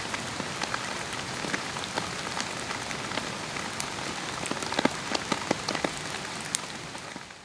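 Steady summer rain falling in a garden: a dense, even hiss of rain with many individual drops ticking close by. It fades out near the end.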